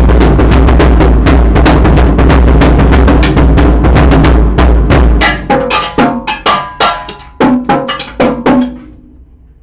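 A small drum kit played hard with sticks: a rapid, loud run of strikes that breaks off after about five seconds into slower single hits that ring. The hits fade out near the end.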